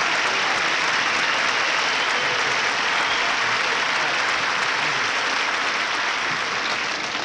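Studio audience applauding steadily, easing off a little near the end.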